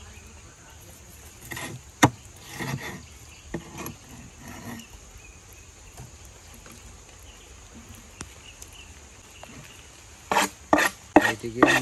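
Long knife blade cutting tuna on a wooden chopping board: scattered scraping and knocking strokes, then a quick cluster of louder strokes near the end.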